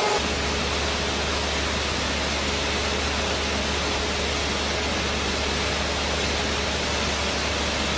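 Steady, even rushing noise like hiss or static, with a steady low hum underneath, beginning abruptly just after the start as an earlier machine whine cuts off.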